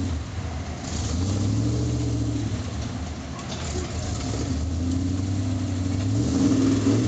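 Lifted small pickup truck's engine revving up and easing off in turns as it crawls up a steep dirt bank under load, with the revs climbing highest near the end.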